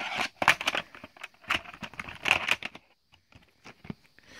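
A VHS cassette and its plastic clamshell case being handled: a quick run of plastic clicks, taps and rattles over about three seconds, then only a few faint ticks.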